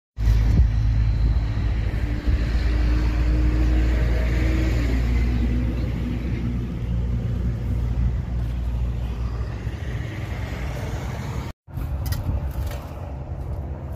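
An engine running steadily with a low, even rumble, with a few sharp clicks near the end.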